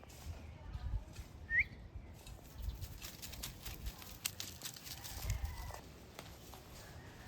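A single short, rising bird chirp about one and a half seconds in, over rustling and scattered light clicks.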